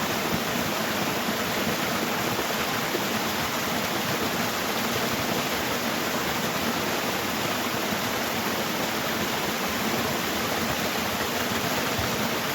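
Waterfall, falling water rushing in a steady, even roar.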